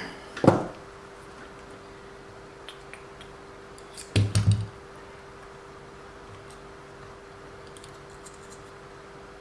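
Small hard objects handled on a workbench: a single knock, then a brief rattle of several quick clicks a few seconds later, over a faint steady hum.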